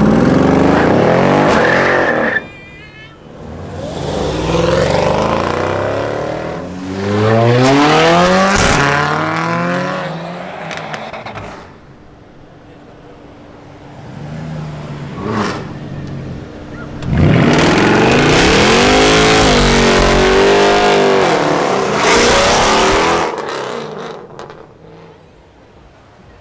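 Mercedes-AMG V8 cars revving and accelerating hard away one after another, their exhausts loud, each burst rising in pitch through the revs. The longest and loudest run comes about two-thirds of the way through.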